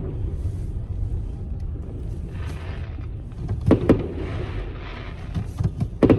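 Steady low rumble of a car interior on the move, with distant fireworks bangs: two close together a little past halfway, and a quick cluster near the end.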